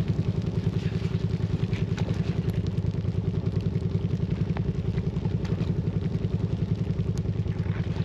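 A small engine idling steadily, with a rapid, even pulse.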